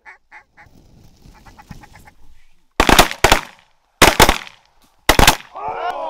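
A run of evenly spaced duck quacks, then several loud shotgun blasts in quick succession from about three seconds in as the hunters fire on incoming ducks. Excited voices start near the end.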